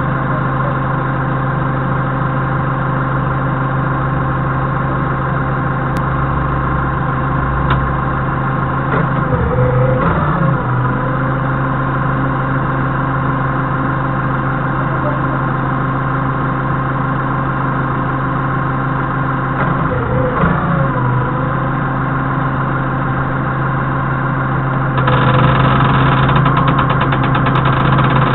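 Doosan 4.5-ton forklift engine idling steadily, with brief changes in pitch around ten and twenty seconds in. About 25 seconds in it runs louder as the engine is revved to work the mast hydraulics.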